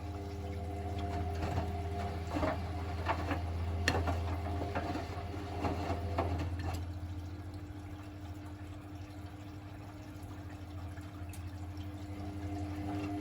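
Hotpoint WML540 washing machine mid-cycle: a steady motor hum, with water splashing and sloshing irregularly in the drum for the first half.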